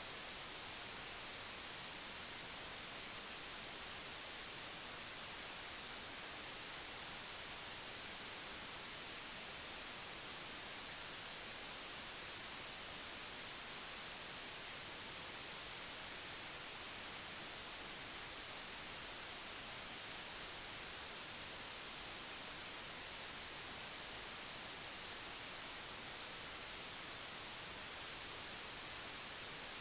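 Steady, unchanging static hiss, strongest in the high end, with no other sound standing out.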